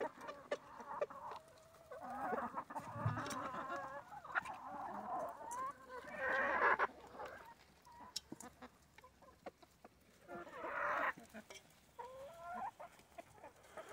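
Backyard chickens, hens and roosters, clucking in bouts while they feed, with scattered sharp ticks between the calls.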